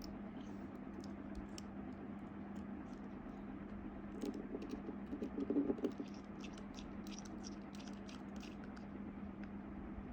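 A scatter of light clicks and small taps, with a cluster of rattly clicking about four to six seconds in, over a steady low hum.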